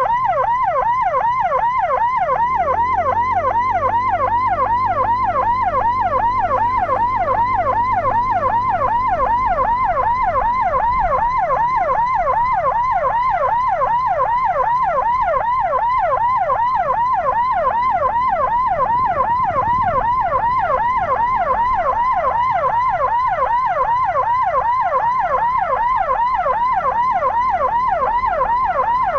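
Electronic emergency siren on its fast yelp setting, a loud steady run of quick rising-and-falling sweeps, about two to three a second. A vehicle engine hums underneath for a while early on.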